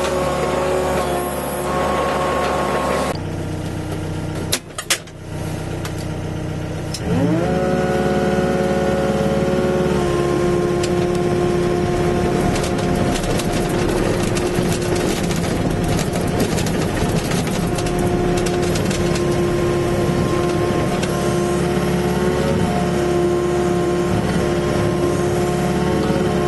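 Diesel engine of a Volvo EC55C mini excavator running steadily. It drops to a lower speed about three seconds in, with a couple of sharp clicks. Around seven seconds in it revs up and holds a higher steady speed.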